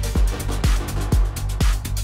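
House-techno music played from DJ decks: a steady four-on-the-floor kick drum at about two beats a second, each kick dropping in pitch, with hi-hats ticking between the beats.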